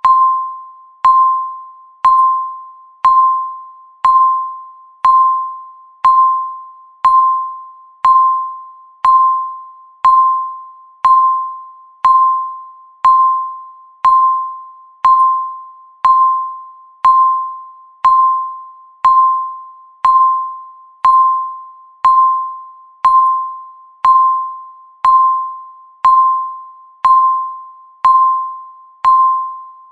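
Electronic countdown-timer beep marking each second: a single ringing tone at one steady pitch, struck once a second and fading away before the next.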